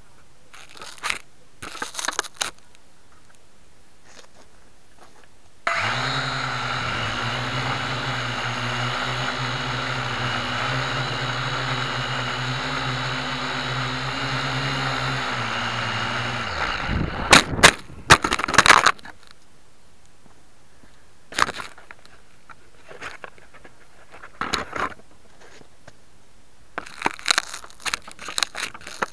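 Syma X1 toy quadcopter's four small electric motors whirring steadily in flight for about eleven seconds, heard through the onboard camera's microphone, then spinning down as power is cut and the quad slams into the ground with a few loud knocks. Scattered light clicks and knocks come before and after.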